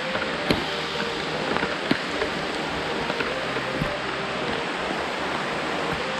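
Steady rain falling on forest foliage, with a few louder drops tapping close by.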